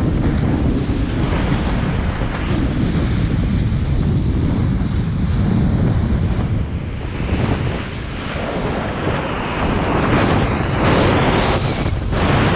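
Wind buffeting the microphone over water rushing under a kiteboard, a steady low rumble with louder surges of hiss about seven seconds in and again near ten seconds in.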